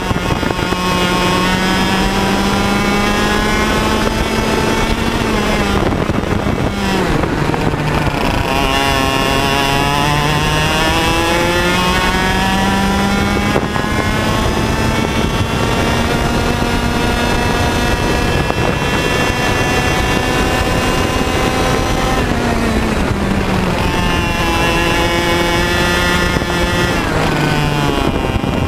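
100cc two-stroke TaG kart engine running at race speed, its revs dropping off twice, about five seconds in and again past twenty seconds, and climbing back up each time.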